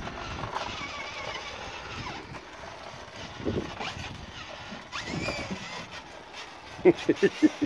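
Children's electric ride-on toy motorbike running along paving stones: a faint wavering whine from its small motor over the rumble of its plastic wheels on the paving. A quick run of short knocks comes near the end.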